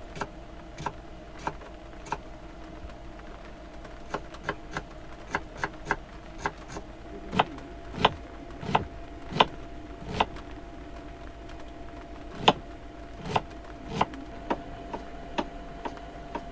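Large raindrops dripping onto the roof of a parked camper van: irregular sharp taps, busiest in the middle, over a steady low hum.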